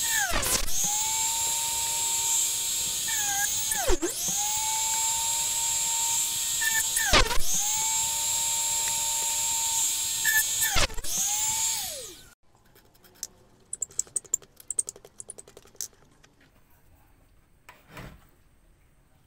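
Small drill press running with a steady high-pitched whine. Its pitch dips sharply about four times as the bit bogs down boring spoke holes into a wooden wheel rim. The motor is switched off about twelve seconds in, and only faint clicks from handling the jig and rim follow.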